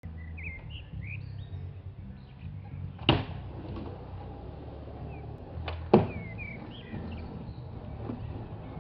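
Skateboard knocking sharply on the miniramp twice, about three seconds in and again near six seconds, as the skater sets up and drops in. Birds chirp in the background over a low steady rumble.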